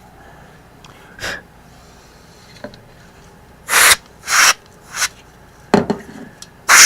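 A can of compressed-air duster spraying in short hissing blasts, three quick ones and then a longer blast near the end.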